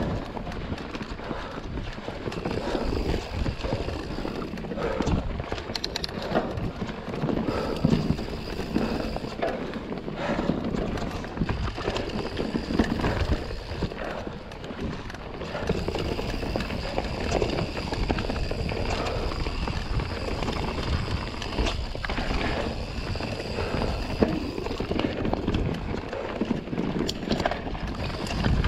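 Full-suspension mountain bike (Polygon T8) descending a rough dirt trail at speed: continual rattling and sharp knocks as the bike hits roots and rocks, over the rush of tyres on dirt.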